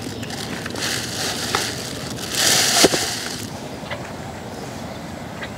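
Leaves rustling with a crackly texture, swelling for about a second in the middle, with a few faint clicks.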